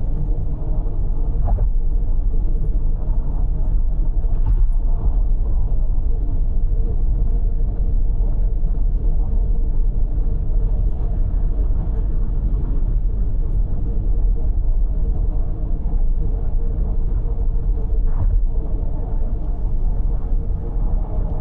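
Car travelling at expressway speed: a steady low rumble of engine and road noise that runs evenly throughout.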